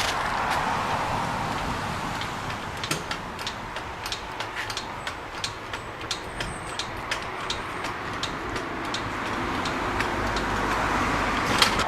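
Sharp clicks and taps, several a second and unevenly spaced, from the work of changing a tire, over a steady background noise.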